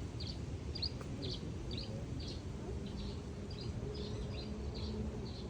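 A small bird chirping over and over, short high chirps about three a second, over a low outdoor rumble; a faint steady hum joins in the second half.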